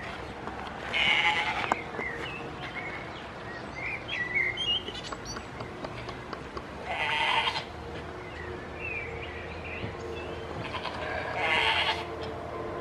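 Goats bleating: three loud calls, each about a second long, spaced roughly five seconds apart.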